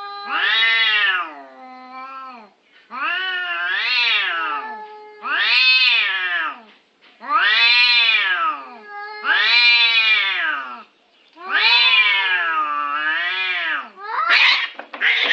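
Domestic cats caterwauling in a territorial standoff: about six long, wavering yowls in a row, each rising and falling in pitch, with a harsher, noisier cry near the end.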